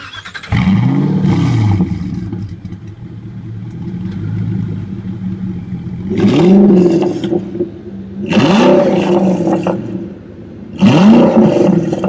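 Vehicle engine idling, blipped four times: the pitch rises and falls quickly with each rev, and it settles back to a steady idle between them.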